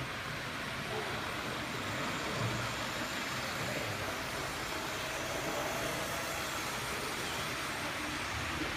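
Model Flying Scotsman 4472 locomotive, driven by a motor in its second tender, running along the track with its coaches: a steady whir of the motor and the wheels rolling on the rails.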